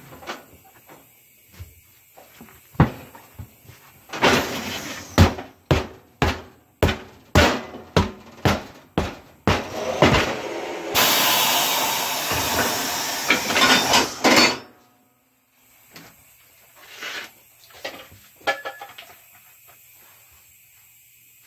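Coats 40/50 manual tire changer being worked by hand to mount a tire: a run of sharp metal knocks about twice a second as the mount bar is levered around the centre post, then a few seconds of steady scraping hiss as the tire bead slides over the rim, cutting off suddenly.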